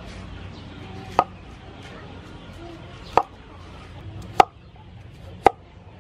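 Cleaver chopping pumpkin on a wooden cutting board: four sharp knocks of the blade striking the board, about one to two seconds apart.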